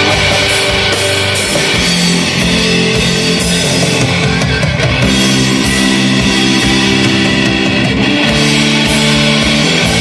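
A live rock band playing loud: distorted electric guitars and electric bass holding chords over a drum kit, with cymbal crashes every second or so.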